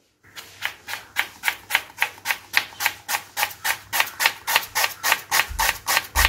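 A kitchen knife slicing an onion on a wooden cutting board, each cut ending in a sharp click of the blade on the board, about four cuts a second at an even pace.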